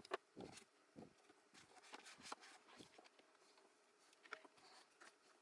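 Near silence, with a few faint scattered clicks and taps of handling.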